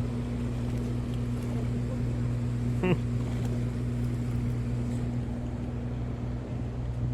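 A steady low mechanical hum holding one unchanging pitch over a constant rushing noise, with a brief vocal sound about three seconds in.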